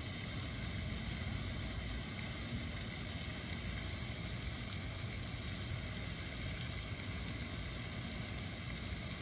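Steady outdoor background noise: a low, unsteady rumble with an even hiss over it, and no distinct event standing out.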